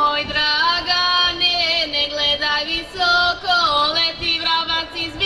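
Serbian women's folk singing group singing a traditional song unaccompanied, in long held notes that bend and slide between pitches.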